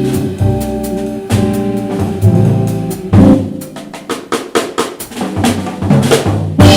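Closing bars of a live jazz tune on guitar, double bass and drum kit. Sustained chords with drum strokes give way about halfway to a run of quick drum-kit strokes, ending on one loud final hit.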